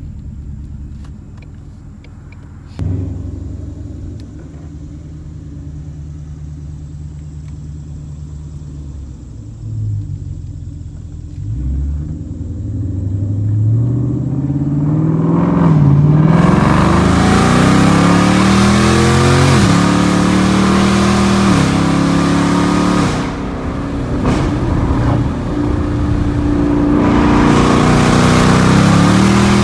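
Ford Mustang GT's 5.0 L Coyote V8 through a straight-piped MBRP cat-back exhaust, idling with a short blip of the throttle, then revving up from about twelve seconds in and pulling hard, the exhaust note rising and dropping in steps.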